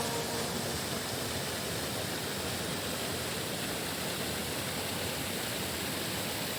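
Steady rush of a large waterfall: an even, unbroken wash of falling water.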